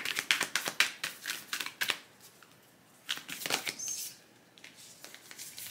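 A deck of Moonology oracle cards shuffled by hand, a rapid run of papery card clicks. One run lasts about the first two seconds and a second comes about three seconds in, with a few softer clicks near the end.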